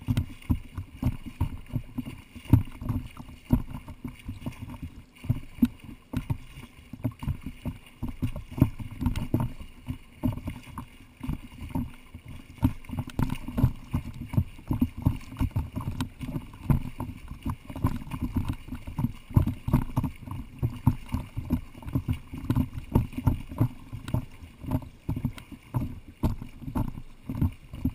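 Lake water slapping and sloshing against a camera riding at the surface, mixed with the splashing of a swimmer's freestyle strokes, in quick irregular low pulses.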